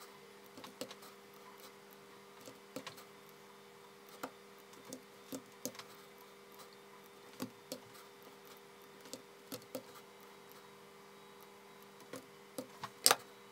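Scattered computer mouse clicks and keyboard keystrokes at irregular intervals, with a louder pair of clicks near the end, over a faint steady electrical hum.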